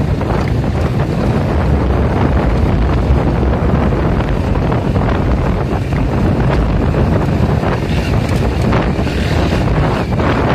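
Wind buffeting the microphone of a phone carried by a moving rider: a loud, steady low rumble.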